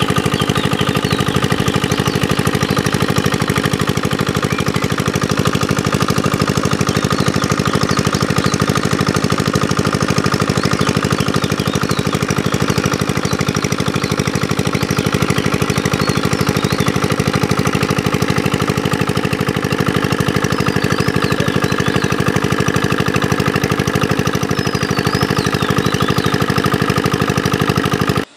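Single-cylinder horizontal diesel engine running steadily under load, driving a water pump that draws water out of the pond. Its firing is a fast, even knocking beat.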